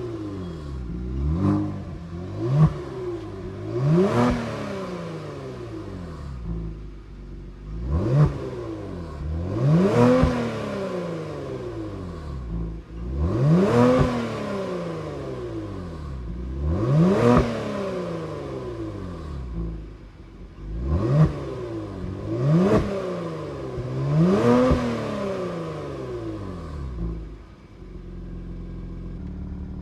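Kia Stinger GT's 3.3-litre twin-turbo V6 revved about ten times in short blips, each rising and falling back, breathing through aftermarket downpipes on an otherwise stock exhaust. Near the end it settles to a steady idle.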